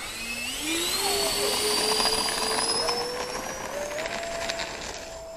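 Twin 64 mm electric ducted fans of an E-flite A-10 Thunderbolt II RC jet whining under throttle on the takeoff run, the pitch climbing steadily.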